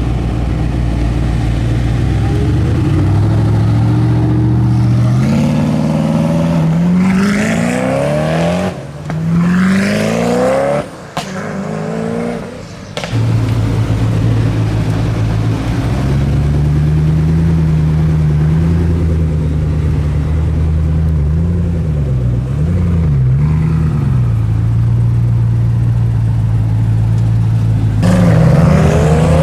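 Koenigsegg supercar V8 engine running: the revs climb in steps over the first several seconds, broken by abrupt cuts, then it settles to a steady idle with a few small blips of the throttle, and the revs rise again near the end.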